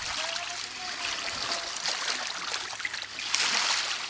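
Shallow water washing and trickling over a rocky shore, a steady fizzing wash that swells louder about three and a half seconds in, then fades toward the end.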